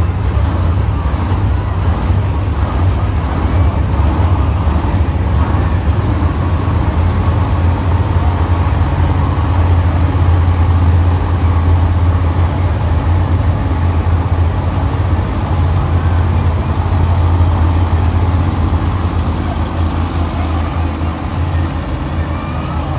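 Monster truck's supercharged V8 engine running at low revs as the truck drives slowly on dirt, a steady, low-pitched engine sound.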